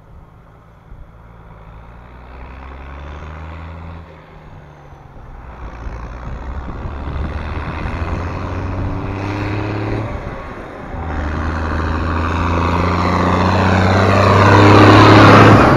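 Diesel engine of a Case IH tractor pulling a loaded silage trailer, approaching and passing close by. The steady engine hum grows louder throughout, dipping briefly twice about four and ten seconds in, and is loudest near the end as the tractor comes closest.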